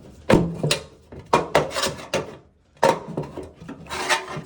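Irregular clattering knocks and clicks from a bathroom exhaust fan housing and its broken-up motor parts being pried and wiggled in the ceiling opening, with a short lull partway through. The housing is stuck in place.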